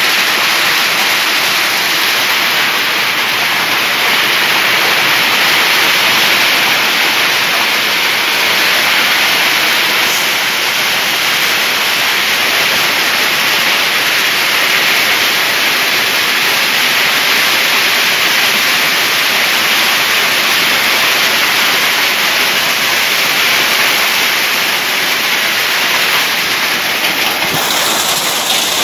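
Hail and rain falling hard on wet ground in a steady, dense hiss.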